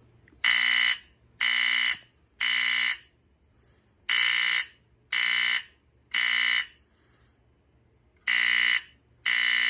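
BRK 769AC-I smoke alarm's piezo horn sounding its temporal-3 alarm pattern: loud, steady, high-pitched beeps of about half a second each, three at a time about a second apart, then a short pause. Two full groups of three play, and a third begins near the end. The three-beep pattern is the standard smoke-alarm evacuation signal.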